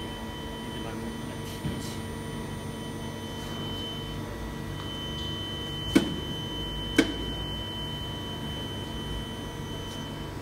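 Steady machinery hum with several fixed whining tones over a low rumble, broken by two sharp clicks about a second apart midway through.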